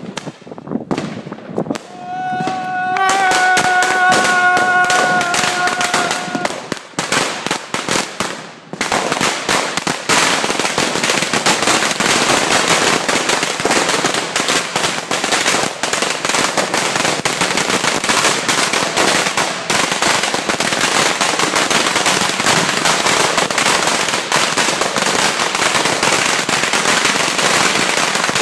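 A long roll of firecrackers (a 100,000-shot string) going off as a dense, continuous rapid crackle of bangs from about nine seconds in. Before that come scattered separate bangs and a steady whistling tone held for about four seconds.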